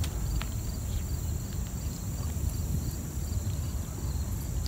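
Low wind rumble on the microphone, with insects calling steadily above it: a continuous high whine and a regularly repeating chirp.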